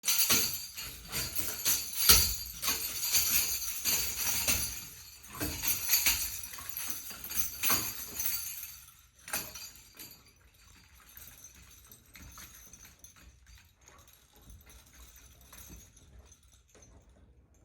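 Potty bells, a strap of jingle bells hanging on a door handle, jingling and clattering as a dog shoves them about. The jingling stops about nine seconds in, leaving only faint small sounds.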